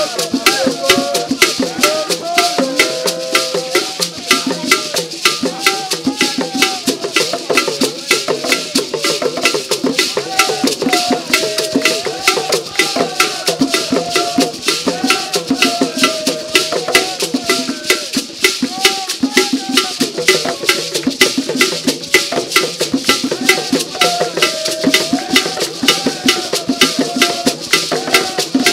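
A traditional drum ensemble playing a fast, steady rhythm on large hand drums, with a shaker rattling along and voices singing a wavering melody over the beat.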